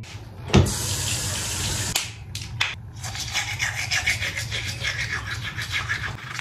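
A sharp click about half a second in, then water running and splashing at a bathroom sink, with a few knocks around two seconds in.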